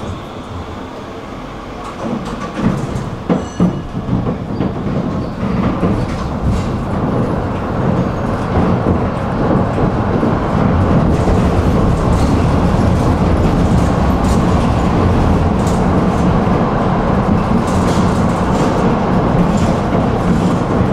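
Tram running on its rails, heard from on board: a steady rolling rumble of wheels on track that swells after the first few seconds, with a few sharp clunks about two to four seconds in.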